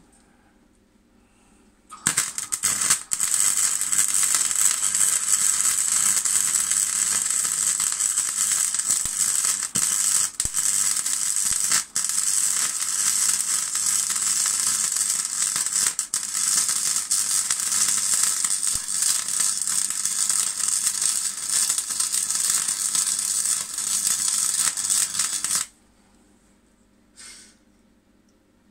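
Wire-feed (MIG) welding arc crackling and sizzling on steel flat bar as a weld is run. It starts about two seconds in, keeps going with a few brief breaks in the arc, and stops a few seconds before the end.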